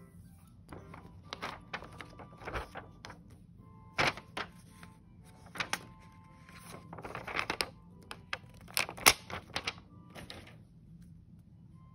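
Sticker-journaling handling sounds: a plastic sticker sheet and paper stickers rustling and crinkling as stickers are peeled off and pressed onto the page with tweezers, with sharp taps and clicks, the loudest about 4 s and 9 s in.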